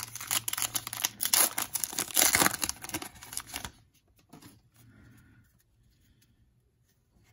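Foil wrapper of a Panini Contenders football card pack being torn open and crinkled: a dense crackle lasting about three and a half seconds, followed by faint sounds of the cards being handled.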